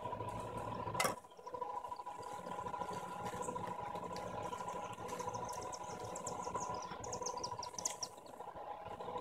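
Scissors snip through a shrub branch about a second in, then the dry grass and twigs of a cardinal's nest crackle as it is pulled free and handled. Under it, a steady pulsing insect trill.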